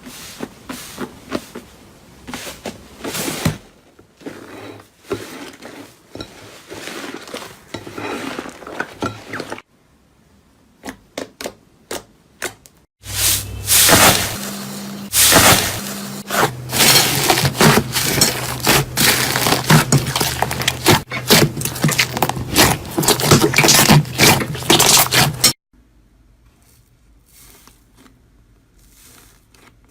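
Crunchy slime being pressed and worked by hand, giving dense crackling, crunching and scraping in several short cuts. The loudest stretch, from about 13 to 25 seconds in, is a thick run of crackles over a steady low hum; before and after it come fewer, quieter clicks and crunches.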